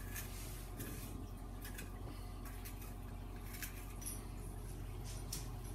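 Faint scattered light clicks and rustles of handling, over a steady low hum.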